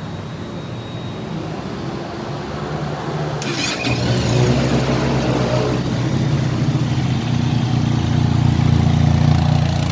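Benelli TRK 502X's parallel-twin engine running. About three and a half seconds in there is a short sharp burst of noise, after which the engine runs louder with a steady deep note that grows louder toward the end.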